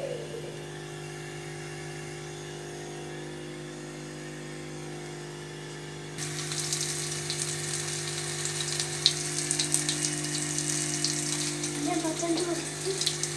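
A steady low hum, then about six seconds in hot oil suddenly starts sizzling and crackling with many small pops as egg-dipped shami kebabs shallow-fry in a pan.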